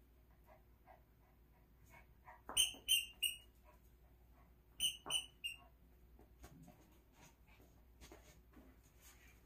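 Squeaky dog toy squeaked in two quick runs of three short, high squeaks, one about a third of the way in and one past the middle. Faint rustling and small clicks as the poodle noses through the blankets.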